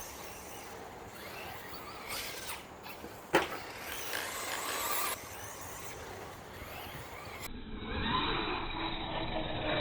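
1/8-scale RC truggy running on a dirt track. A quieter stretch carries one sharp knock about three and a half seconds in. Near the end the motor's whine rises and falls in pitch as the truck accelerates and lets off.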